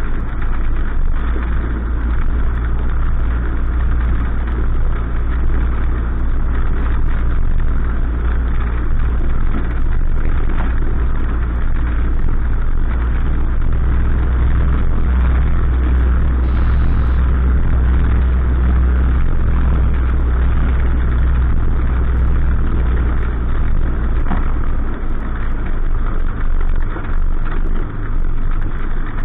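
Cessna 152's four-cylinder Lycoming O-235 engine running at low taxi power, heard from inside the cabin as a steady low drone that grows a little louder about halfway through.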